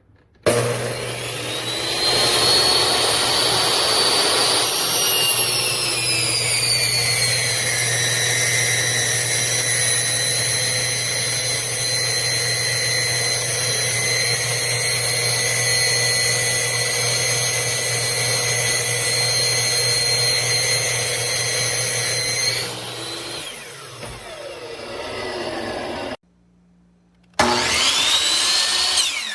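Metabo HPT C10FCGS 10-inch miter saw's 15-amp motor starting with a rising whine, running steadily for about twenty seconds, then winding down. After a short silence it starts again briefly and winds down once more.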